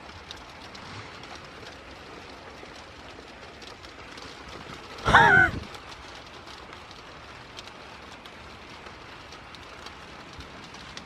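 Steady, distant rumble of an airplane passing overhead, mixed with outdoor wind noise. About five seconds in, a single short cry, about half a second long, is the loudest sound.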